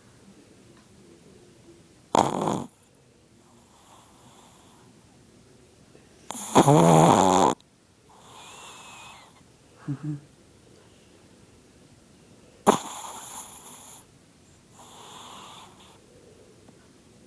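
A Chihuahua snoring really loud in its sleep: loud snores at irregular intervals, the longest and loudest about seven seconds in, with softer breaths between.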